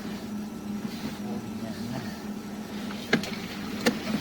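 Sewer inspection camera being pushed down the line: a steady low hum with two sharp clicks about three and four seconds in.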